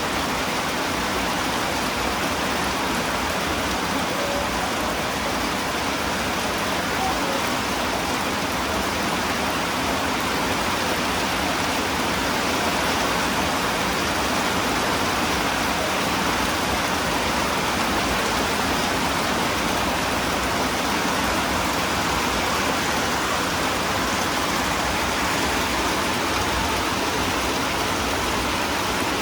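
Rain falling steadily, an even hiss that stays at one level throughout.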